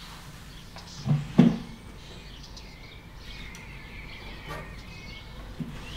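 Two quick knocks about a second in, with faint bird chirping in the background.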